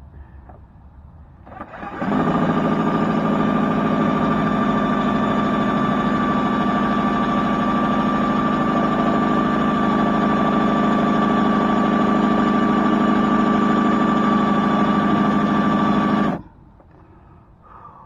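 Electric drill running at a steady speed with a constant whine, starting about two seconds in and stopping about fourteen seconds later. It is boring into a hardened body-molding screw that it barely cuts.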